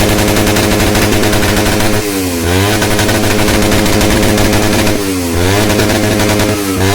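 Loud revving of a Suzuki Raider 150 Fi's single-cylinder engine through an aftermarket Exos X6 exhaust pipe. The revs are held high, drop sharply and climb straight back three times: about two, five and seven seconds in.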